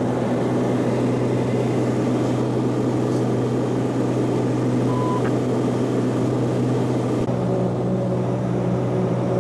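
Steady cabin drone of a Piper Malibu Mirage in cruise: its propeller and turbocharged six-cylinder piston engine making a constant low hum. A brief faint beep sounds about five seconds in, and the drone's tone shifts slightly about two seconds later.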